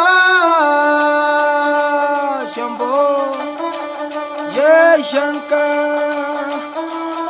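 Ravanahatha, a Rajasthani bowed folk fiddle, playing a melody of held notes with sharp slides down and back up over a steady drone.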